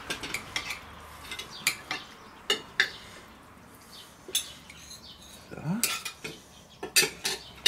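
Knife and fork clinking and scraping on plates as grilled meat is cut and eaten, in scattered sharp clinks with short quiet gaps between them.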